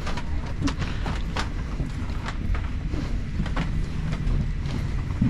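Steady low rumble of the parked Airbus A350's cabin, with irregular light clicks and knocks from someone walking up the aisle.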